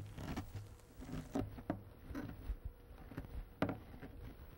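Shredded, salted cabbage being pressed down repeatedly in a plastic container with a hand tool: soft, irregular squishing strokes, about three a second. The pressing works the juice out of the wilting cabbage for sauerkraut.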